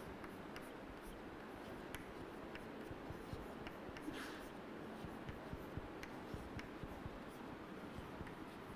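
Chalk writing on a chalkboard: faint, irregular taps and scratches as each stroke of an equation is made.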